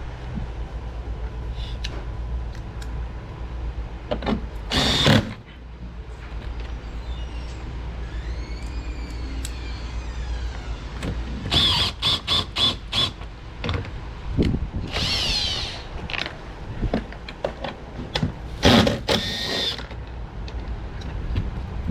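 Plastic car door trim panel being pressed onto the door: clusters of sharp clicks and knocks as the retaining clips snap home, with a short squeak of plastic rubbing on plastic in between.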